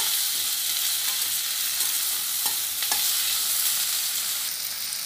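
Chopped onions and tomatoes sizzling in oil in a stainless steel kadai as they are sautéed, with a steel spoon stirring and scraping against the pan a couple of times near the middle.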